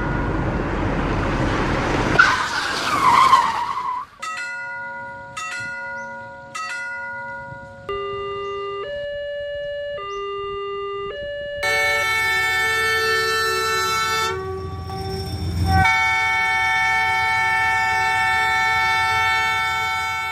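Railroad-crossing sound effects: a train rushes past for the first few seconds, then a crossing bell rings in evenly spaced dings. After that a two-note tone alternates, followed by a long steady train horn that shifts pitch partway and stops near the end.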